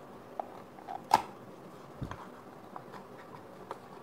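Small cardboard box being handled and opened: a few light taps and clicks of the cardboard flap, the sharpest about a second in, with a soft low thump near two seconds and faint ticks after.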